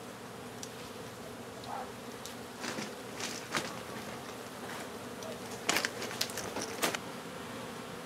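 A honeybee colony buzzing steadily around its exposed comb as the comb is cut out by hand. Scattered short clicks and rustles of handling sound over the buzz from about two and a half seconds in, the loudest around six to seven seconds in.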